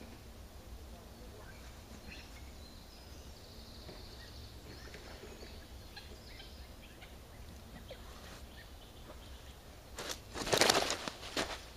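Faint birdsong over a low steady hum, then about ten seconds in a sudden burst of slapping and rustling as a common carp thrashes in the mesh landing net on the unhooking mat.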